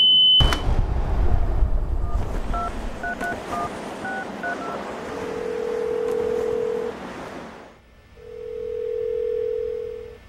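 Telephone call being placed: a high steady tone cuts off sharply about half a second in, then a quick run of about eight touch-tone keypad beeps as a number is dialled, followed by two long, steady ringing tones in the earpiece as the line rings out.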